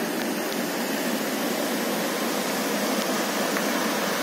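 Swollen, muddy floodwater rushing and churning over a submerged bridge, a steady, even hiss of fast-flowing water.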